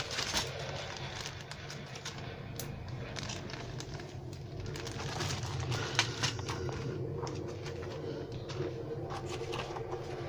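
Clear plastic zip bags of model-kit parts and a paper instruction sheet rustling and crinkling as they are handled and moved, over a steady low hum.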